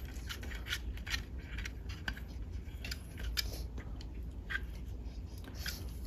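Coax cable's metal F-connector being screwed by hand onto the threaded coax port of a MoCA 2.5 adapter: a run of small, irregular metallic clicks and scrapes as the nut turns on the threads.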